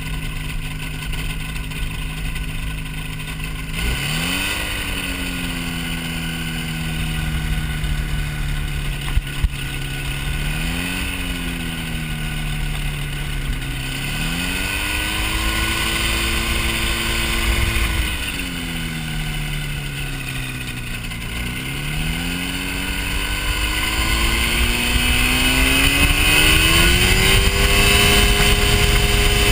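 Ultralight airplane engine and propeller running, the throttle worked up and down so the pitch rises and falls several times before it settles at a higher steady pitch near the end. Two brief sharp knocks come about nine seconds in.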